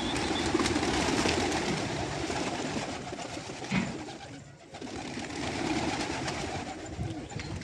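A flock of domestic pigeons flushed into flight, many wings flapping and clattering at once, with pigeons cooing among them. The flapping eases about halfway through, then picks up again as more birds take off.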